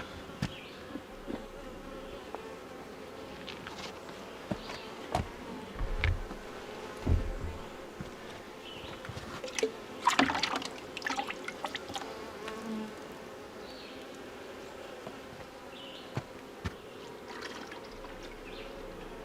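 Honeybees buzzing steadily around an open hive, with scattered clicks and knocks of handling and a short clatter about ten seconds in.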